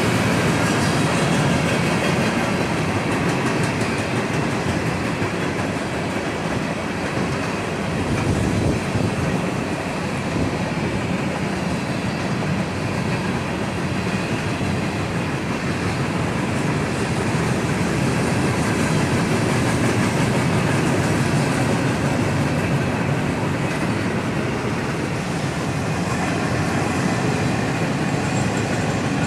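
A train rolling past, its wheels running steadily on the rails.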